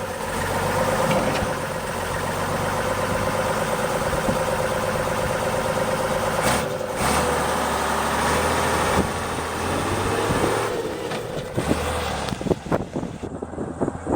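Unimog FLU419 diesel engine running steadily. Its note dips briefly about halfway through and rises and falls once near three-quarters of the way in. Near the end the engine sound drops away and irregular knocks and clatter take over.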